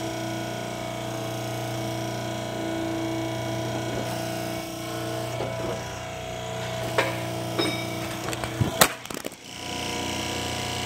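Steady electric motor hum, with a few light metallic clicks and knocks in the second half; the sharpest knock comes nearly nine seconds in.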